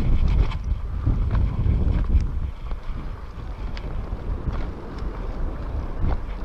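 Wind buffeting the microphone of a camera on a moving bicycle: a gusty low rumble, with a few faint clicks over it.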